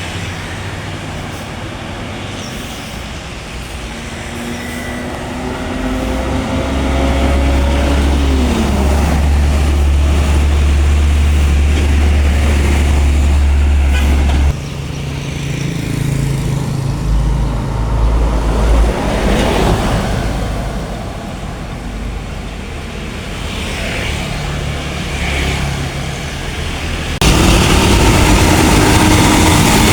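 Large diesel buses passing on the road with traffic noise. One bus engine rises in pitch as it accelerates, drops back about eight seconds in, and leaves a deep rumble. The sound changes abruptly twice, about halfway through and near the end, as another passing bus takes over.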